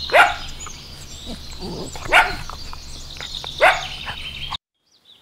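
A dog barking three short times, about a second and a half apart, each bark falling in pitch. The sound cuts off abruptly near the end.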